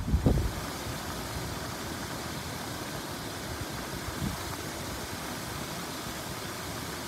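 Public fountain's water jets splashing steadily into the basin, an even hiss.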